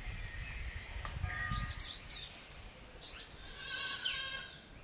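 Small birds chirping: a few quick, sharp falling chirps and some short whistled notes, the loudest about four seconds in.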